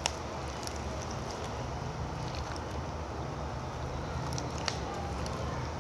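Glittery slime being stretched and handled by hand, with a few faint sticky clicks over a steady low hum.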